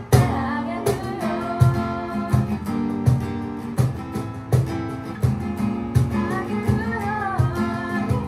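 Live acoustic duo: a steel-string acoustic guitar strummed with a cajon keeping a steady beat and a woman singing the melody. The music cuts out for an instant right at the start and comes back on a strong beat.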